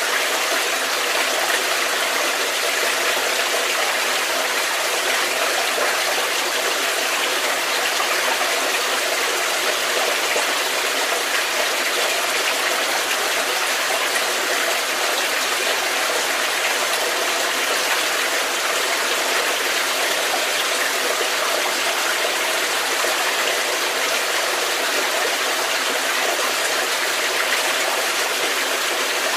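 Stream water flowing and splashing steadily, a cave stream.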